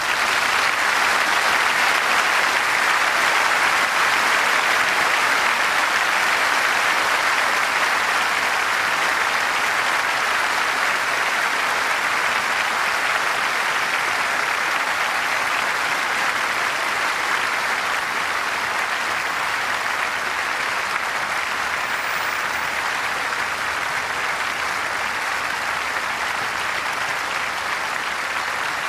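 A large crowd applauding: dense, steady clapping that swells up at the start and then holds, easing only slightly toward the end.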